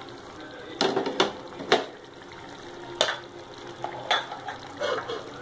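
Thick curry gravy simmering in a pan with a steady low bubbling, broken by about six short, sharp plops and knocks as mutton meatballs are dropped into it one by one.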